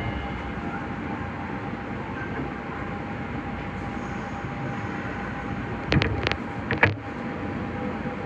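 Nagoya subway Higashiyama Line 5050 series train running, with a steady rumble and a steady hum. About six to seven seconds in come a few sharp clacks, typical of the wheels passing over rail joints or points.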